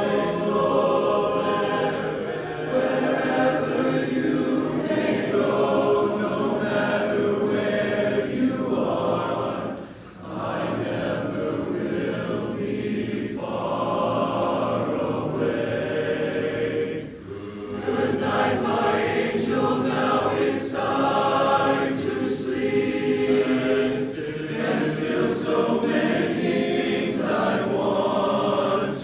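Men's chorus singing four-part TTBB harmony in held, swelling chords. The singing breaks off briefly about 10 seconds in and again about 17 seconds in, at phrase breaks.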